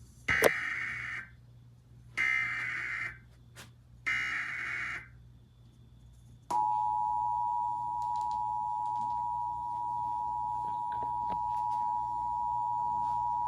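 Emergency Alert System header: three bursts of SAME digital data tones, each about a second long, followed after a short pause by the steady two-tone attention signal held for about eight seconds. Together they announce an incoming alert, here a tornado warning.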